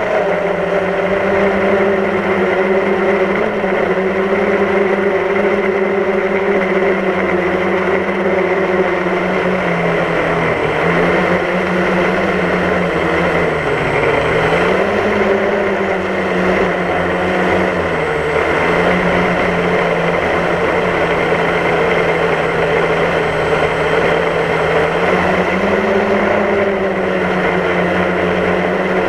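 DJI Phantom quadcopter's motors and propellers humming steadily, heard up close from the camera mounted on the drone. The pitch dips briefly a few times in the middle and rises a little near the end as the motors change speed.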